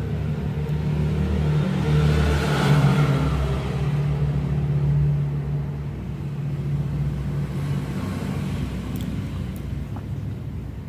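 A steady motor hum that swells louder for a few seconds near the start, then settles back.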